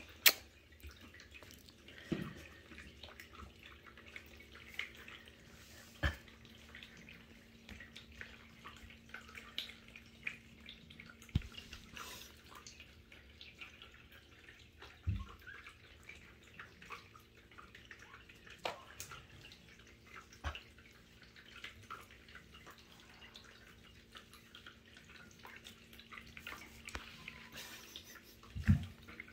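Faint scattered ticks, taps and rustles of young kittens crawling over a woven towel, with a few sharper knocks and a faint steady hum underneath.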